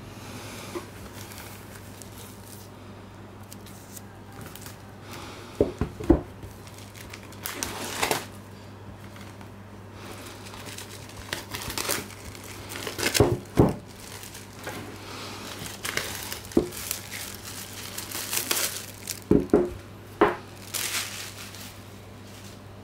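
Clear plastic shrink-wrap crinkling and tearing in short bursts as it is peeled off a cardboard box set by gloved hands, with several sharp knocks from the box being handled, the loudest a pair about six seconds in and another pair near the middle.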